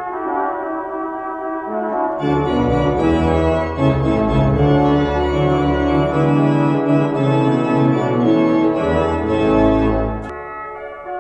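Organ music: slow, held chords with deep bass pedal notes that enter about two seconds in and drop out near the end, leaving a quieter held chord.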